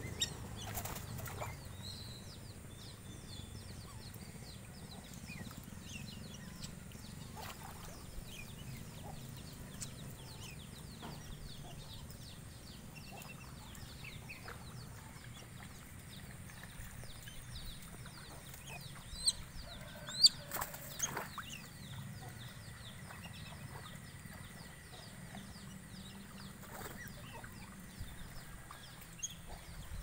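Whistling ducks trapped under a mesh net, flapping their wings and giving many short, high whistles throughout, with a couple of sharper knocks about two-thirds of the way through.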